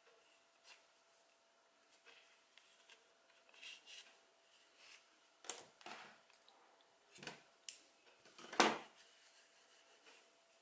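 Faint handling noises of hands working a small crocheted acrylic-yarn piece: soft rubbing of yarn and skin, with a few short rustling scrapes in the second half, the loudest about three-quarters of the way in.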